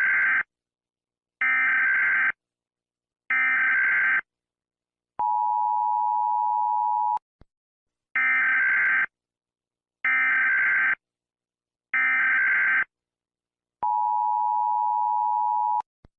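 Emergency Alert System tones: three short bursts of the SAME data header's screeching digital tones, then the two-tone attention signal held for about two seconds. The whole sequence plays twice.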